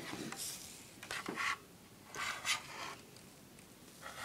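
Plastic smoke detector being handled and turned over: a few short rubs, scrapes and light knocks of its plastic casing.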